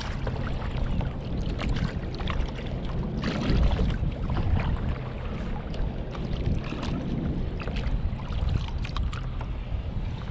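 Wind rumbling on the microphone aboard a kayak, with water lapping and scattered small clicks and knocks.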